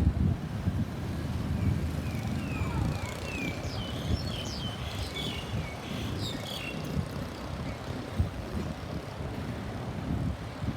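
Steady rumble of road traffic. From about a second and a half in to about seven seconds, faint short high-pitched glides repeat over it.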